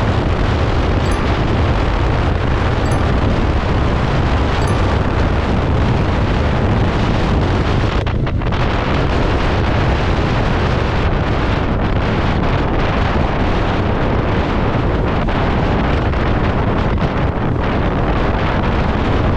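Wind rushing over the microphone of a Yamaha MT-15 V2 ridden at highway speed in sixth gear, a loud steady rush with the motorcycle's engine and road noise beneath it.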